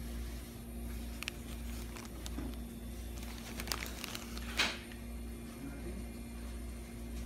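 Steady low hum with faint handling noise: a few small clicks and paper crinkles as a wrap sandwich is handled over its paper wrapper, and one louder rustle about four and a half seconds in.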